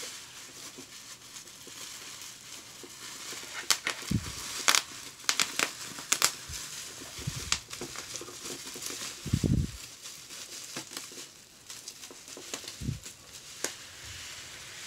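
Bubble wrap and plastic wrapping crinkling and crackling as gloved hands peel it off a cardboard box, with sharp crackles and a few dull thumps of the box being handled on a wooden table, the loudest thump about two-thirds of the way through.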